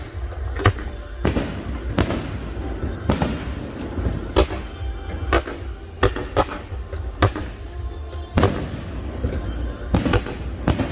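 Aerial fireworks bursting overhead: irregular sharp bangs, roughly one or two a second, many trailing off in an echo.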